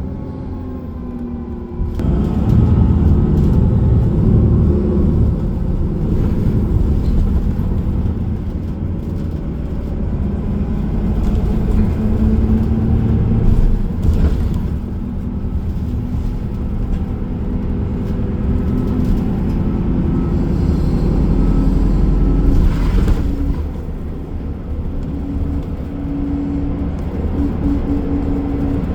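Inside a moving city bus: the bus's engine and drivetrain run under steady road rumble, with a hum whose pitch shifts as the bus changes speed. The sound steps up suddenly about two seconds in.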